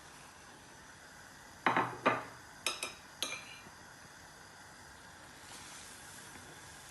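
Kitchen utensils knocking and clinking against a frying pan of milk as sago pearls are added: two loud knocks a little under two seconds in, then three quick sharp clinks, over a faint steady hiss.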